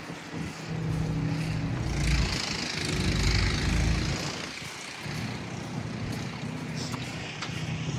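A vehicle engine running with a steady low hum. About two to four seconds in, a loud gust of wind buffets the microphone.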